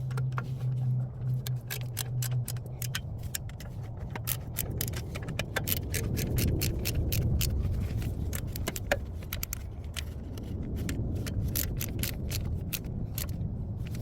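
Metal hand tools clicking and clinking rapidly and irregularly on the catalytic converter's mounting nuts. A steady low hum runs under the first couple of seconds.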